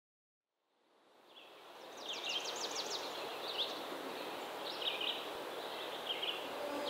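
Outdoor ambience fading in: birds chirping over a steady background hiss, with a quick run of sweeping notes about two seconds in and scattered chirps after.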